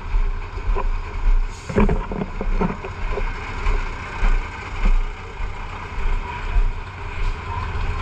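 Fire truck engines running steadily at a scene where the trucks are pumping through hoses laid in the street, heard through low buffeting on a body-worn microphone. A short cluster of knocks comes about two seconds in.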